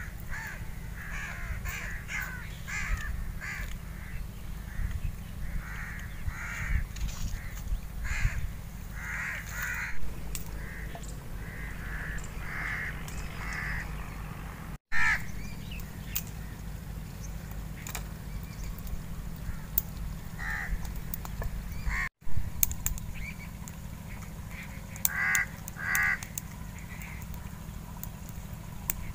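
Crows cawing, a run of short harsh calls repeated through the first half, then a few more in small groups later, over a steady low rumble.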